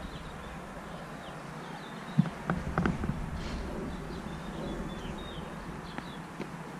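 Outdoor ambience with small birds chirping now and then, and a few short knocks about two to three seconds in.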